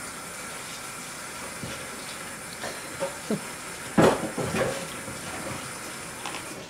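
Steady background hiss, with brief voice sounds: a short falling one about three seconds in and a louder one about four seconds in.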